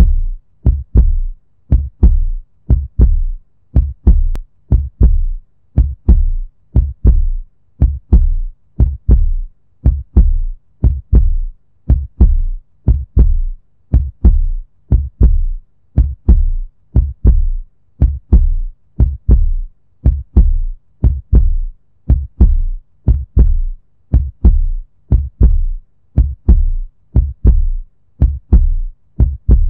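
Amplified heartbeat: deep thumps in a steady, even rhythm, about two a second.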